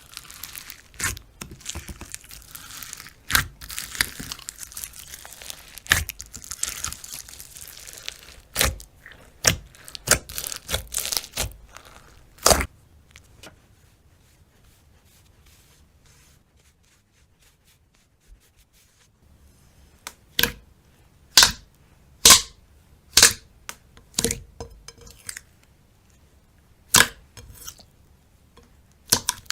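Slime being squeezed and stretched by hand, crackling densely with sharp clicks and pops of trapped air. About halfway through it goes quiet for several seconds, then gives single sharp pops about once a second.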